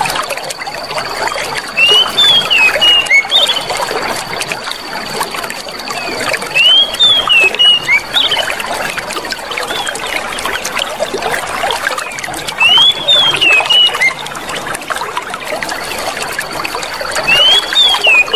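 Clear running water trickling and splashing steadily. Short bursts of high chirping calls, rising then falling, break in four times at about five-second intervals, over a thin steady high tone that drops out now and then.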